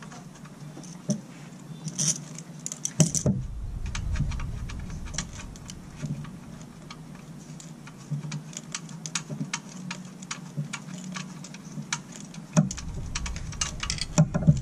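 Light metallic clicking and rattling as a loosened O2 sensor is turned out of a motorcycle's exhaust by hand, with a louder knock about three seconds in.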